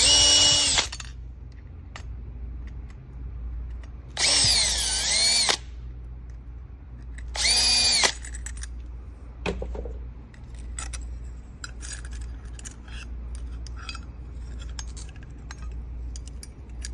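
Power drill-driver running in three short bursts, its motor whine rising and falling in pitch, as screws are driven out to take a lock apart. Light clicks and taps of small metal parts follow in the second half.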